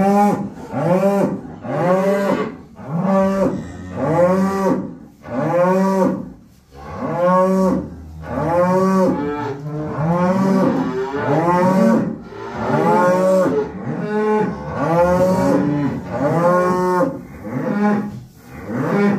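Penned cattle mooing almost without pause, one call after another and often overlapping, about one or two a second: kind of noisy.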